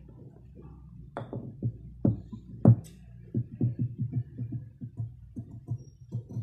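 Scissors cutting the curved back neckline of a striped fabric piece: a run of short snips, one louder snip about two and a half seconds in, then quicker, even snips about three or four a second.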